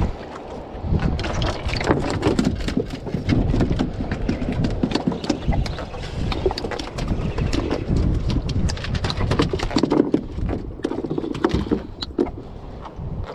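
Freshly caught grey triggerfish flapping in a plastic fish box and on the boat's deck: a fast, uneven run of knocks and slaps that thins out near the end.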